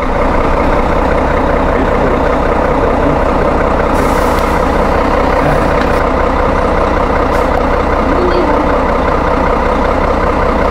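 A vehicle engine idling steadily, with a short hiss about four seconds in.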